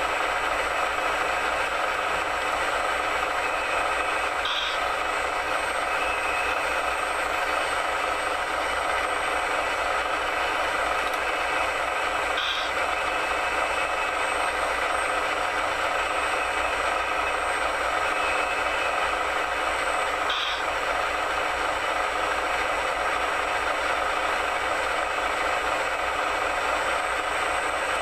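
Radio-controlled model construction machines running steadily, a dense whir of small motors and gears with a short high blip about every eight seconds.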